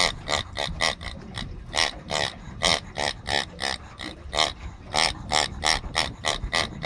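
A rubber pig squeaky toy squeezed over and over, giving a quick, irregular run of short squeaky oinks.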